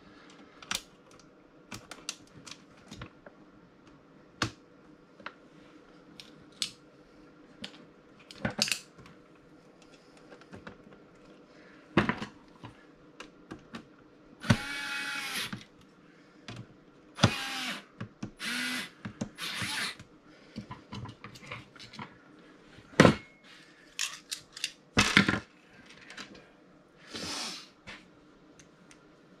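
Small handheld electric screwdriver driving screws into the grinder's housing in about five short whirring spurts of a second or less. Sharp clicks and knocks of screws and parts being handled come between them.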